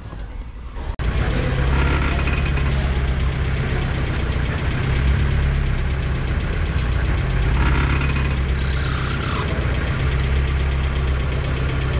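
Mazda MX-5 Miata's engine idling while the steering wheel is turned at a standstill, with a crunching creak from the steering and front end coming through a few times, about 2, 8 and 9 seconds in. The owner is unsure whether it comes from the steering or the suspension; his dust boots are torn and he expects worn small parts.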